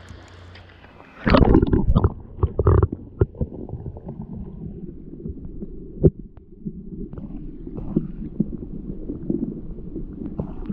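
A camera plunged into calm sea water with a splash about a second in, then the muffled gurgling and rumble of water heard underwater, with scattered knocks.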